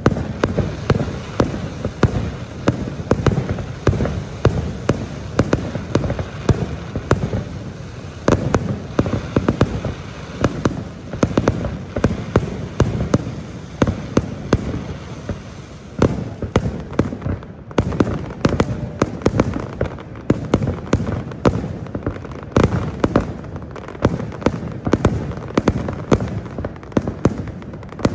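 Fireworks display going off in a rapid, unbroken series of bangs, several a second.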